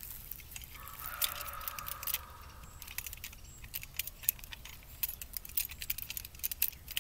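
Metal toy cap gun clicking and rattling as it is spun, tossed and caught, with many small sharp clicks that come thicker in the second half.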